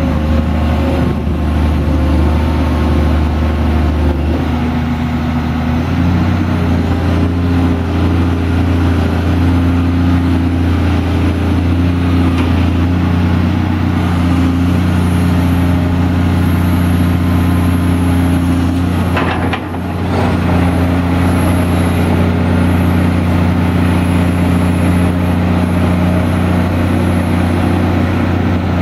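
Diesel engine of a 2005 Caterpillar 345BL Series 2 excavator running steadily as the machine is worked, its note shifting a few seconds in. Near the two-thirds mark there is a brief dip in level with a short sharp sound.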